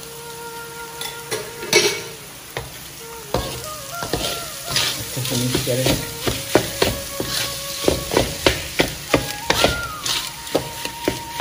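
Wooden spatula stirring mashed potato masala in a metal kadai: scraping with repeated knocks of the spatula against the pan, coming quicker and closer together in the second half. Soft background music with held notes runs underneath.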